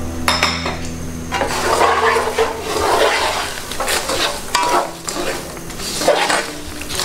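Perforated steel skimmer scraping and stirring sugar, cashews and cardamom powder in hot ghee in a non-stick frying pan, in repeated strokes about a second apart.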